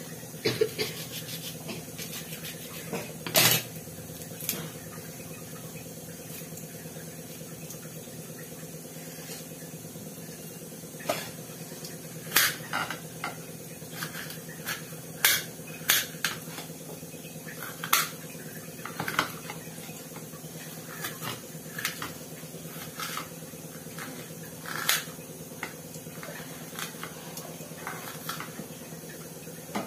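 Scattered sharp clicks and light knocks of a knife and kitchen utensils at the counter, irregular rather than a steady chopping rhythm, with the loudest knock about three and a half seconds in. A steady low hum runs underneath.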